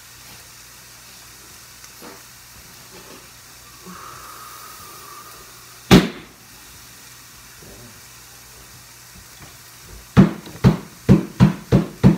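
Faint steady hiss of pork cutlets frying in a pan. One sharp knock about halfway through, and a quick run of about seven knocks, roughly three a second, near the end.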